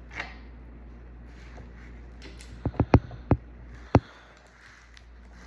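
Hands working on an open laptop: a quick run of about five sharp clicks and taps midway through, over a low steady hum.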